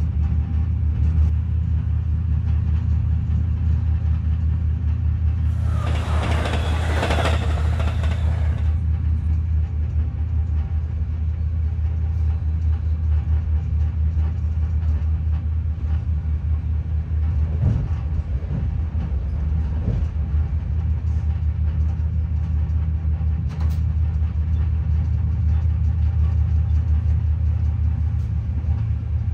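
Steady low rumble of a moving passenger train heard from inside the carriage. About six seconds in, a loud rushing noise starts suddenly and lasts about three seconds.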